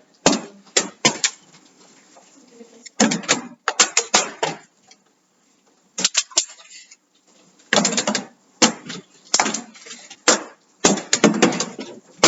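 Partly filled plastic water bottles being flipped onto the top of a microwave, knocking as they land and tip over, with repeated sharp thuds and clatters in clusters.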